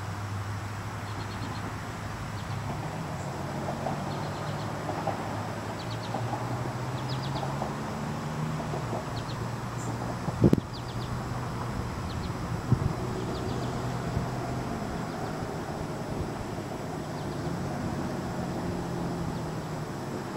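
A low motor hum that shifts up and down in pitch, with short high bird chirps repeating about once a second. Two sharp knocks come about halfway through.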